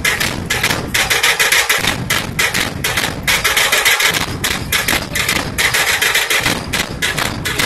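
Maharashtrian dhol-tasha drumming: dhol barrel drums and tasha played in a fast, dense beat, with a pattern that repeats about every two seconds.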